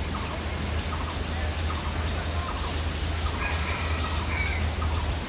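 Low, steady drone of an approaching diesel locomotive, with short bird calls scattered over it.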